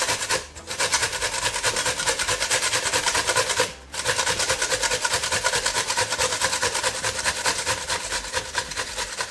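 Unpeeled cucumber grated on a stainless steel box grater, with quick, even rasping strokes several times a second. The strokes break off briefly twice, about half a second in and near four seconds in.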